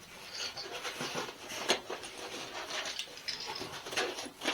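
Rustling, light scrapes and small clicks as microphone kit parts and packaging are handled, with a sharper click a little under two seconds in and another near the end.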